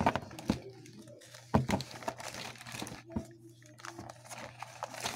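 Clear plastic pocket pages of a trading-card binder crinkling as they are handled and turned, with a few sharp crackles as the sheets flex and flip.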